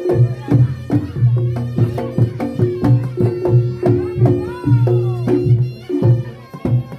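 Live Reog Ponorogo gamelan accompaniment: hand drums beating a quick, steady rhythm over sustained ringing gong tones.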